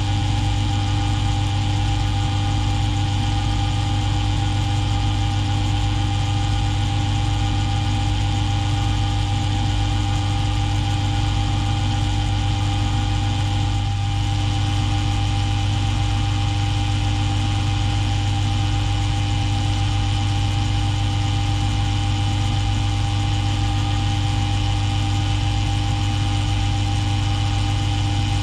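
Bench mill-drill motor running at a steady hum while a 1.5 mm bit drills through a small pin.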